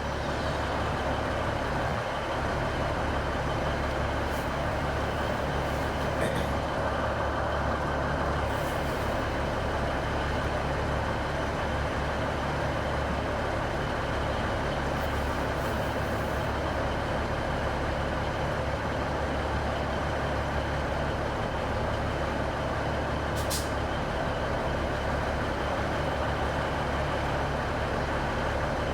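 A stationary train's engine idling at the platform: a steady, even drone that does not change in pitch or loudness.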